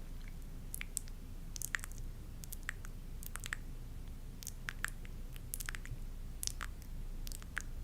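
Close-miked ASMR trigger sounds: soft, irregular wet clicks, about two or three a second, over a low steady hum.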